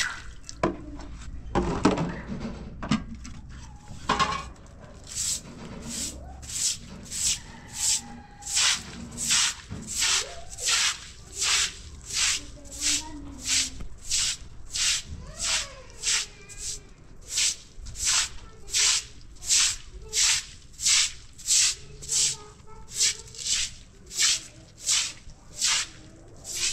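Water splashing onto concrete in a few loud bursts, then a short hand broom sweeping wet concrete in steady, even scratchy strokes, about three every two seconds.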